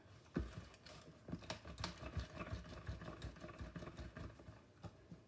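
Faint, irregular clicks and light knocks of kitchen utensils being handled, with a slightly louder knock about half a second in.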